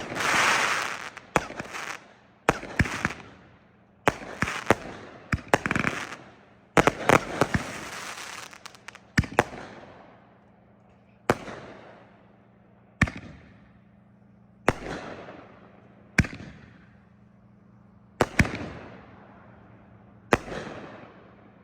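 Consumer fireworks going off: for about the first ten seconds, rapid overlapping bangs with crackle and hiss from a 500 g cake and artillery shells firing together. After that come single sharp booms about every one and a half to two seconds, each trailing off, as the last artillery shells break.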